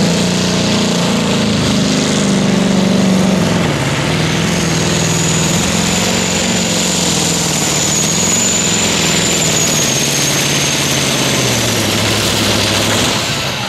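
Modified pulling tractor's diesel engine running flat out under the load of the sled, its pitch slowly dropping as the pull goes on, with a thin high whine over it through the middle of the run.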